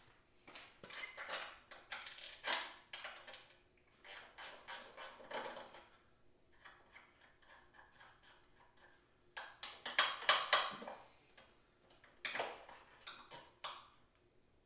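Ratchet wrench clicking in about five short bursts of rapid ticks, with pauses between, as the bolts on a mini bike's chain tensioner are loosened.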